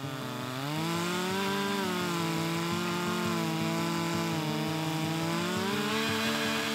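Stihl MS 462 two-stroke chainsaw in an Alaskan chainsaw mill, running at full throttle as it rips a slab lengthwise from a maple log. The engine's pitch climbs in the first second, then holds high, wavering a little under the load of the cut.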